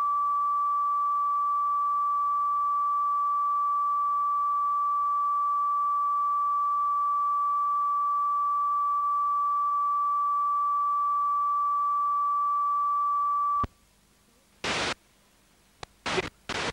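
Television test tone broadcast with a colour-bar test card at the close of transmission: one steady, unbroken high beep that cuts off suddenly near the end. Near silence follows, broken by three short bursts of hiss.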